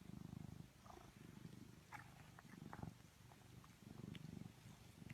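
Domestic cat purring faintly, a low rumble that swells and eases with each breath.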